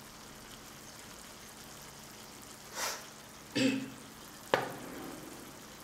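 Thick gravy simmering in a frying pan on a gas burner with a faint steady sizzle. Near the middle come a short breathy noise and a brief low voice-like sound, then a sharp tap.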